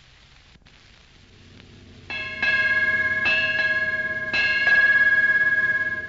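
Ship's bell struck several times in close pairs from about two seconds in, each stroke ringing on, after faint old-recording hiss.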